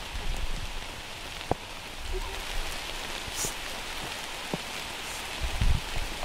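Steady rain falling on forest leaves, an even patter with a few louder single drops and a low rumble near the end.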